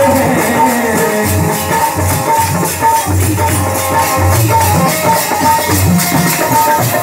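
Live Hindi devotional bhajan music without singing: a barrel drum beating a steady rhythm, with fast even jingling percussion and a held melody tone above.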